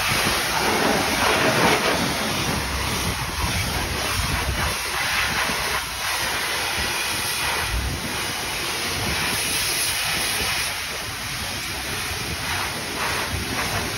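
Self-serve car wash high-pressure wand spraying water onto a car's bodywork: a steady hiss of spray.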